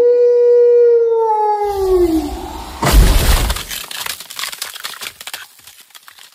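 Sound effects: a single howl held on one pitch and then falling away, followed about three seconds in by a loud crash of breaking glass with a low thud, its fragments clattering and fading out.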